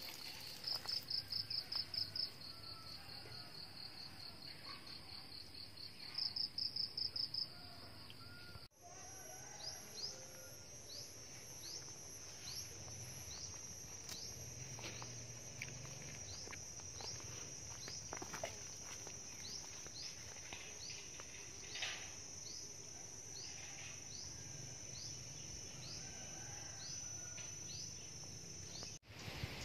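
Insects trilling in a steady high-pitched drone, twice swelling into louder rapid pulsing. About a third of the way in the sound cuts to a slightly higher steady trill, with short chirps repeating about once a second.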